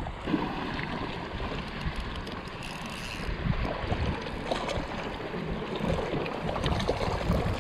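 Small sea waves washing and foaming against a rocky shore, with wind rumbling on the microphone.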